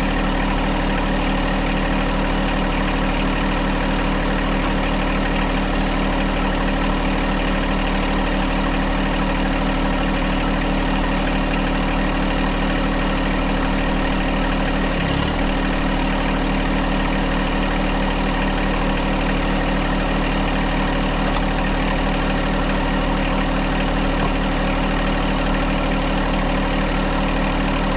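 John Deere 1025R compact tractor's three-cylinder diesel engine running at a steady, even speed.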